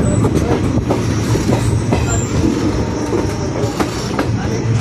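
Passenger train coach running on the rails, heard from its open doorway: a steady wheel-on-rail rumble with irregular clacks as the wheels cross rail joints and points, and a brief high wheel squeal about two seconds in.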